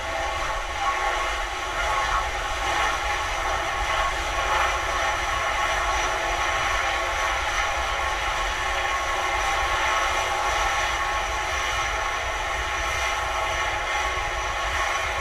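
Steady rushing hiss of the SpaceX Starhopper prototype venting propellant gas from its top after landing, with a low rumble underneath.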